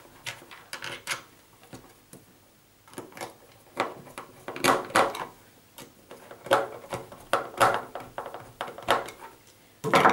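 Plastic clicks and knocks as a CAT5e network faceplate is fitted back onto its surface-mount back box and screwed down with a hand screwdriver, coming in short clusters every second or two.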